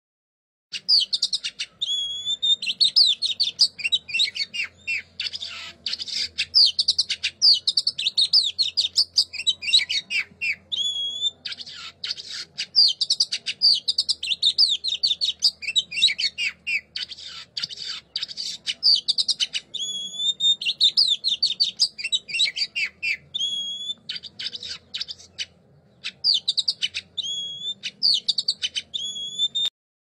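A songbird singing a fast, varied song of chirps, trills and short clear whistles, with the same whistled phrase coming back several times and brief pauses about 11 and 26 seconds in.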